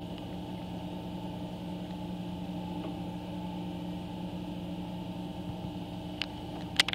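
Jones and Shipman 1307 universal cylindrical grinder running with a steady mechanical hum, with a few sharp clicks near the end.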